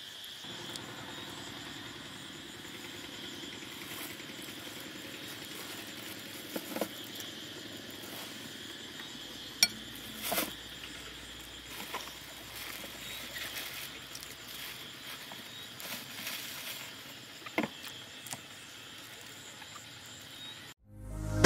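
Crickets and other night insects chirring steadily, with a few short clicks and clinks. Music comes in at the very end.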